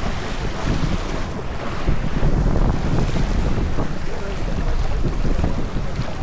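Wind buffeting the microphone on a sailboat under way, with water rushing and splashing along the hull.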